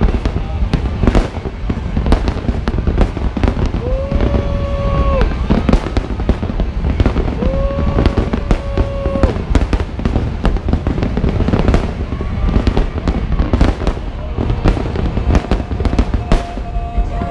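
A fireworks display: a rapid, uneven barrage of aerial shell bangs and crackles over a continuous low rumble. Twice, a held tone rises and then hangs for a second or two among the bangs.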